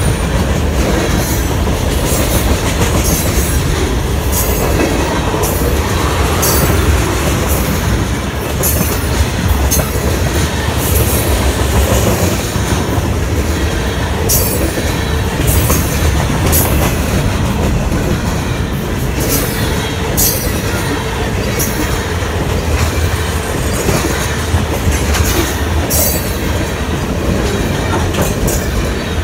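Union Pacific freight cars rolling past close by: a steady rumble of steel wheels on rail, with repeated sharp clicks as wheel sets go by.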